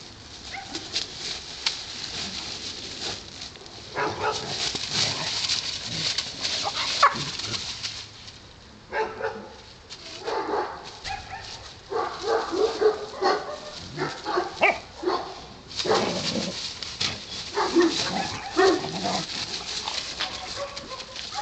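Two Fila Brasileiro puppies play-fighting, giving short yaps and whines, coming thick and fast in the second half, over the rustle of dry leaves and a cloth sack being pulled about.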